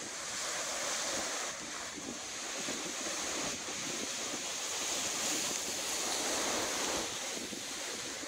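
Strong hurricane wind, about 40 mph with gusts to 60, rushing through palm trees as a steady roar. It swells about a second in and eases slightly near the end, with some wind buffeting the microphone.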